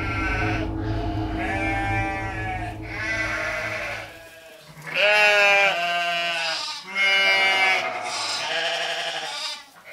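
Sheep bleating over and over: a run of long bleats, each about a second, one after another, with a low hum under the first few seconds.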